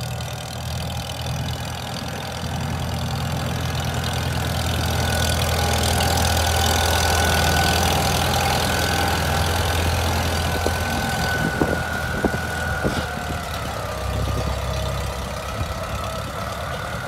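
1949 Farmall M tractor's four-cylinder engine running steadily. It gets louder over the first several seconds, then eases off again, with a few sharp clicks a little past the middle.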